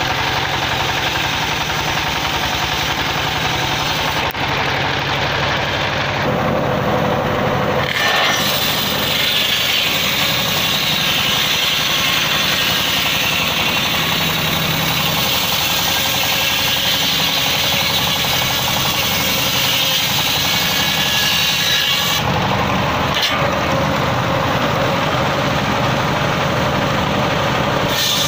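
A stationary engine running steadily, driving a circular saw bench whose blade is ripping lengthwise through a teak log. The cutting noise is brighter in the middle stretch, then falls back to the engine and spinning blade near the end.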